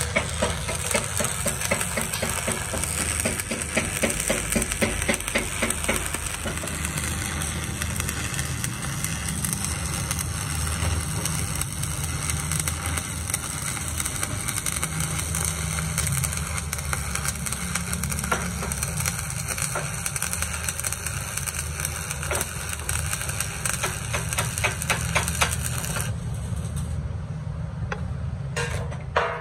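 Stick arc welding on steel plate: the arc crackling and hissing steadily, stopping about three seconds before the end. A low steady hum runs underneath throughout.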